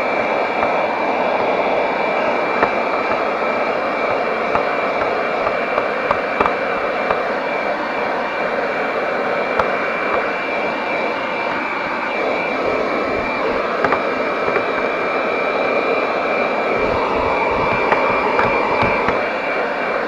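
Piranha PVC-4004 12-volt handheld car vacuum cleaner running steadily with a high whine, its nozzle pressed into the floor carpet, sucking up caked dust and grit with a few small clicks.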